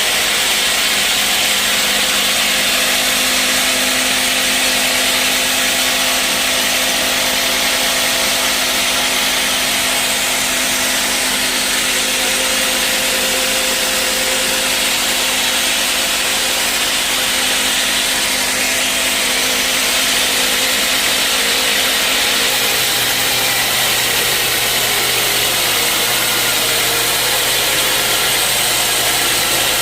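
Sawmill saw cutting through a mahogany log, a loud steady noise of blade in wood over the machine's hum. About two-thirds of the way through, the hum shifts to a lower tone.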